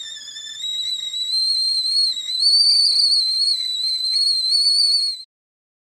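Tea kettle whistling at the boil: one high-pitched, slightly wavering whistle that grows louder in two steps, then cuts off suddenly about five seconds in.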